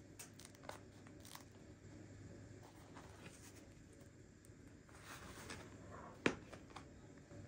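Crisp crust of a sliced whole-grain sourdough ring loaf crackling faintly as a hand lifts and handles it, with scattered small crackles and one sharp click near the end, the loudest sound.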